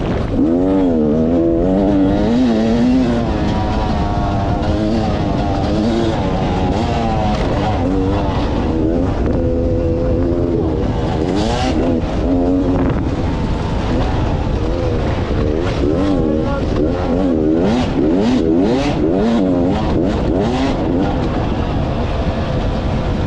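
Beta 300RR two-stroke dirt bike engine being ridden hard, its note rising and falling over and over with the throttle and gear changes. Several short rushes of noise come in the second half.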